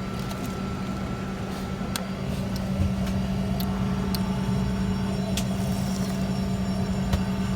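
Steady airliner cabin drone with a constant low hum, growing slightly louder about two and a half seconds in, and a few light clicks over it.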